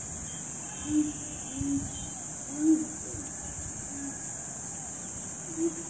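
Steady high-pitched insect drone, with about five short, low hooting bird calls spaced a second or so apart.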